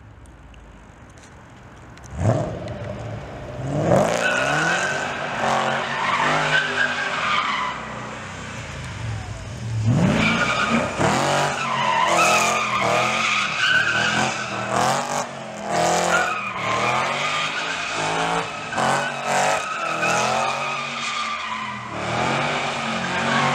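BMW Z3 drifting: the engine revs up sharply about two seconds in and again about ten seconds in. Long wavering tyre squeals ring over the engine for most of the rest.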